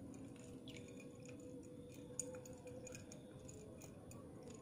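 Metal spoon stirring hailstones in a ceramic mug of tea: faint, irregular clinks of spoon and ice against the mug, with one louder clink about two seconds in.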